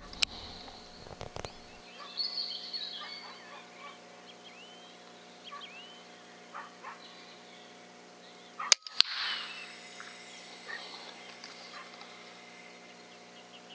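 Quiet background with faint short bird calls. About two-thirds of the way through comes a single sharp crack, a shot from an FX Impact M3 .30 PCP air rifle.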